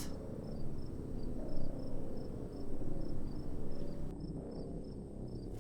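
Crickets chirping in short, high, repeated chirps, a few a second, over a low steady rumble.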